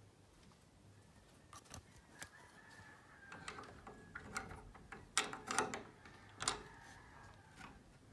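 A rooster crowing faintly in long drawn-out calls, with sharp knocks and rustling close by, the loudest of them a little past halfway.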